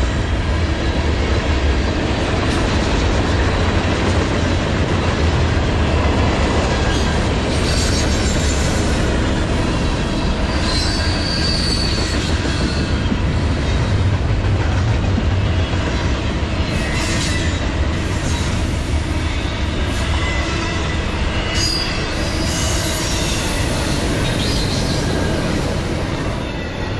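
CSX mixed freight train's tank cars and double-stack intermodal cars rolling past close by: a steady rumble of steel wheels on rail, with brief high wheel squeals several times. The sound drops near the end as the last cars pass.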